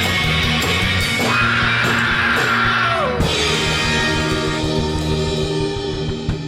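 Rock music with electric guitar, with a sliding guitar note about three seconds in.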